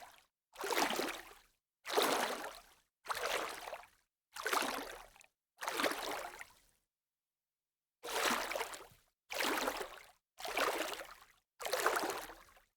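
Light water splashes, one swash about every second, each swelling and fading out, with a pause of about a second partway through.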